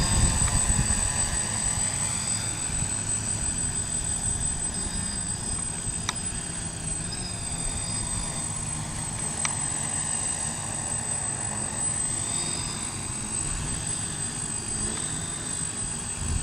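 DJI F550 hexacopter in flight: its electric motors and propellers whir steadily, the pitch drifting up and down a little as the throttle changes, over a low buffeting rumble and a steady high-pitched whine. The uploader blames bad motor bearings for the crash.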